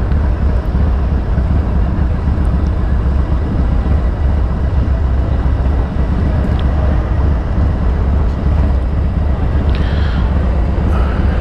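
Harley-Davidson Dyna's Twin Cam 88 V-twin idling with a loud, steady, deep rumble, with some wind on the microphone.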